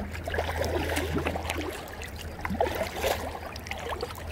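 Kayak paddle strokes in calm lake water: soft gurgles, trickles and drips from the blades, coming in irregular little runs. Under them is a low steady rumble that weakens about halfway through.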